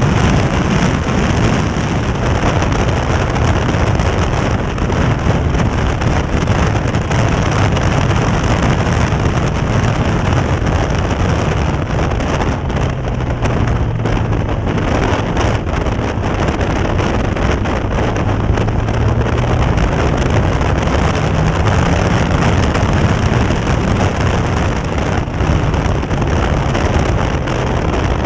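Caterham open-cockpit sports car's engine running hard at track speed, heard from inside the cockpit, its note rising and falling with the throttle. A constant rush of wind and wet-road noise lies over it.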